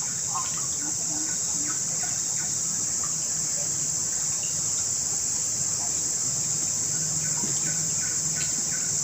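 Forest insects keeping up a steady high-pitched drone, with faint short chirps scattered through it.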